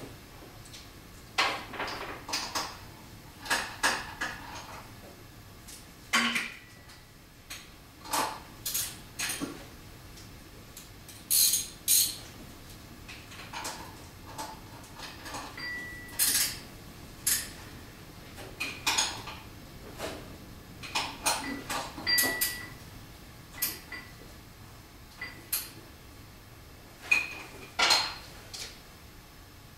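Metal hand tools (wrench and socket) clinking and knocking against metal at irregular intervals while bolts are being fitted, a few strikes ringing briefly.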